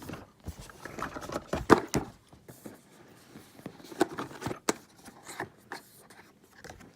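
A product box being unboxed by hand: short scrapes and rustles of the packaging and a few sharp knocks and clicks, the loudest just before two seconds in.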